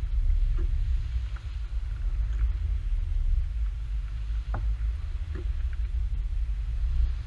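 A steady low rumble on a fishing kayak's camera microphone, with a few light knocks; the clearest comes about halfway through.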